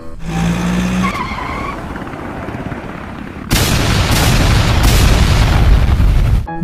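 Cartoon sound effects: a hissing launch with a short wavering whistle, then, a little past halfway, a loud explosion that rumbles on for about three seconds with a few sharp cracks in it.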